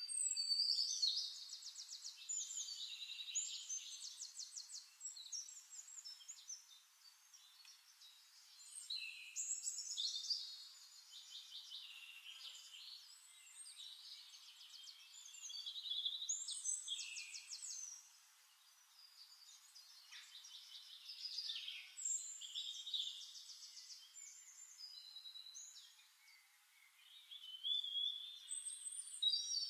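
A songbird singing phrases of fast trills and chirps, each a few seconds long with short pauses between.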